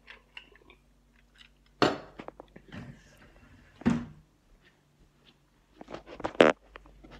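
Handheld phone camera being carried: rustling and several sharp bumps close to the microphone, the loudest near the end.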